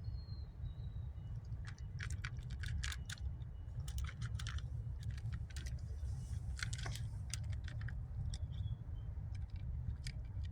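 Stray cats crunching dry cat food, in clusters of sharp crunches over a steady low rumble.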